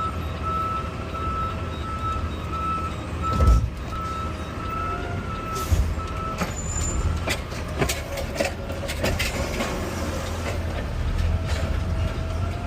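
Garbage truck's diesel engine and hydraulics running, with a repeating warning beep through the first half and a series of metal clunks and bangs, the loudest about three and a half seconds in.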